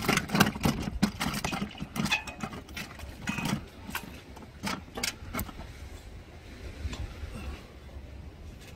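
A freshly landed mullet thrashing in a fabric fishing bag: a quick run of slaps and knocks that thins out after about five seconds, over a steady low rumble.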